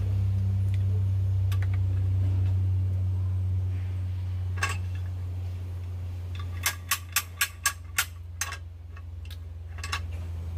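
A steady low hum with a quick run of six sharp clicks, about four a second, about two-thirds of the way through, and a few single clicks around them; the hum weakens at the clicks.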